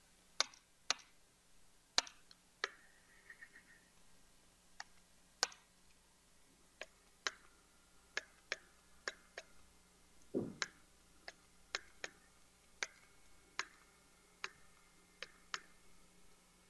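A stylus tapping on a pen tablet while writing by hand: irregular sharp clicks, roughly one or two a second, with one duller thump about ten and a half seconds in.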